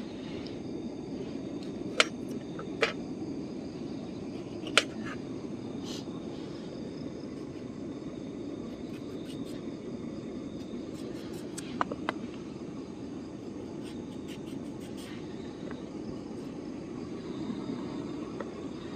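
A steady low rushing noise with faint high steady tones above it, broken by about five sharp clicks and taps of cooking utensils on cookware, the loudest about two seconds in.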